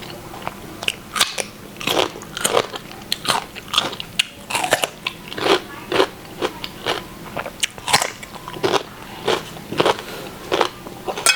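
Close-miked chewing of a mouthful of stir-fried mushrooms: a quick, irregular run of short wet smacks and clicks, about two a second.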